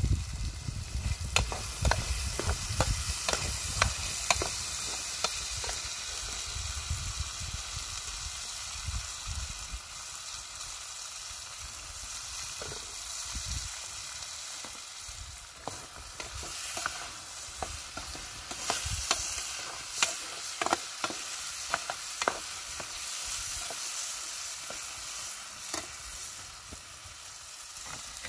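Food sizzling as it fries in a pan, with a steady hiss and frequent short clicks and scrapes of a utensil stirring it.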